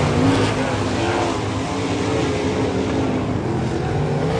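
Several winged sprint cars' V8 engines racing around a dirt oval, their overlapping engine notes rising and falling in pitch as the cars power through the turn.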